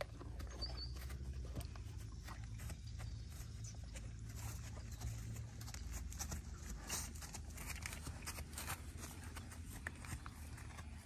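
Ridden horse walking on grass: scattered soft hoof steps and clicks of saddle and bridle over a steady low rumble.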